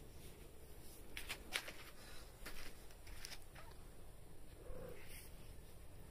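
Domestic cat purring softly, with a few short clicks during the first half.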